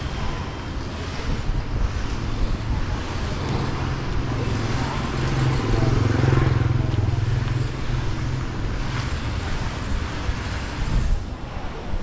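Street traffic, with a motor vehicle's engine rumble swelling to its loudest about six seconds in and then fading as it passes.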